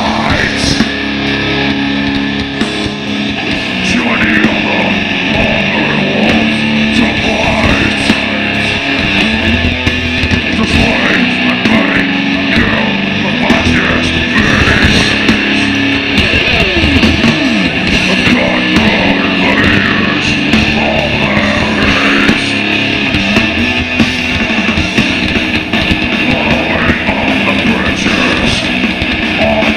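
Death metal band playing live through a festival PA, heard from within the crowd: heavily distorted electric guitars over bass and drums, loud and unbroken.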